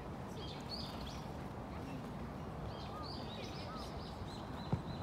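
Steady outdoor noise over a soccer pitch, with short high chirps and faint distant calls, and one sharp thud of a soccer ball being kicked near the end.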